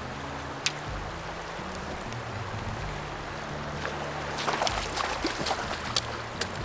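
Shallow stream running over rocks, with quick splashing from about four seconds in as a hooked trout thrashes and a wader hurries through the water. Faint background music underneath.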